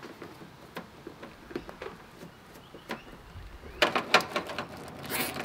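Light clicks and rustles of an electrical wiring harness being handled as plastic connectors are plugged in and the cables tidied, with a denser run of rapid clicks about four seconds in and a short scratchy burst near the end.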